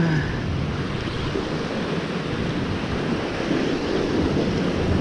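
Steady wind rushing over the microphone, mixed with the wash of the open sea.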